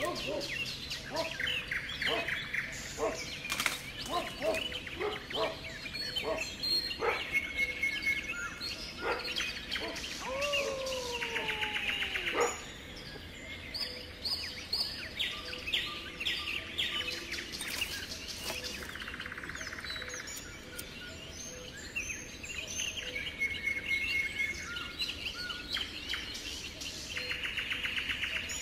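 Several songbirds chirping and calling, with two rapid trills and a falling whistled note. Sharp clicks and crackles through the first ten seconds, as of dry twigs and undergrowth underfoot.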